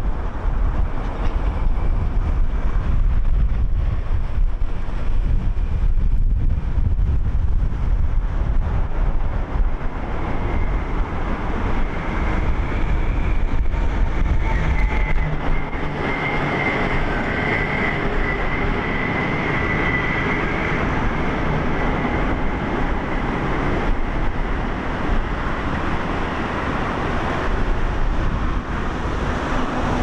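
City street noise with wind rumbling on the microphone. From about sixteen seconds the low rumble drops away and steady traffic noise with a thin high whine takes over.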